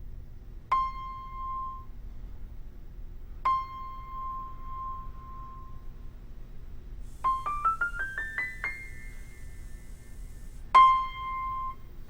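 Keyboard playing single high notes: a C struck twice, the second held, then a quick rising run of about nine notes, and the C struck once more near the end.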